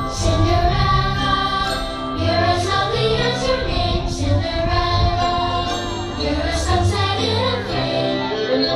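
Fireworks show soundtrack over loudspeakers: orchestral music with chiming bells and singing.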